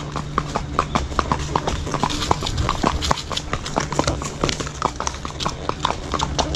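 Horses' hooves clip-clopping on a paved road at a walk, the steps of several horses overlapping in an uneven run of sharp clicks, several a second.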